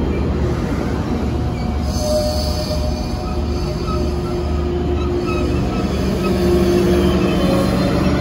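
Tri-Rail bilevel push-pull commuter coaches rolling slowly past as the train brakes to a stop at the platform: a steady low rumble of wheels on rail, with high squealing tones from the wheels and brakes coming and going.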